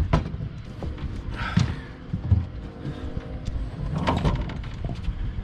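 Knocks and clatter of a big striped bass being handled aboard a fishing boat, a few sharp hits over a low steady rumble.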